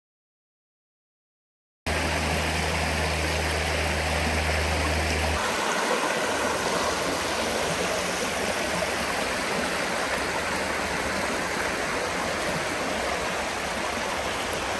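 Silence for about two seconds, then a mountain creek flowing steadily over its bed. A low hum sits under the water and stops a few seconds after the water sound begins.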